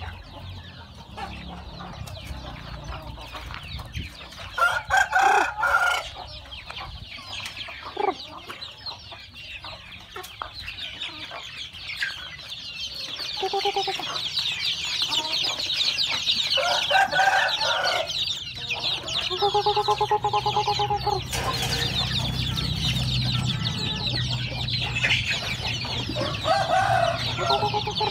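Chickens clucking and calling, with a few loud calls and one long, crow-like call from a rooster about two-thirds of the way through. From about halfway on, a dense chorus of many young chicks peeping rapidly.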